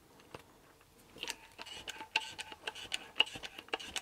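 Light, irregular clicking from a handheld hydraulic crimping tool being worked, starting about a second in, with a cable shoe set in its crimping jaws.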